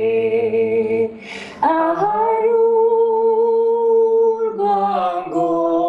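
A man and a woman singing a slow gospel song together without accompaniment, holding long notes, with a short pause and a breath about a second in.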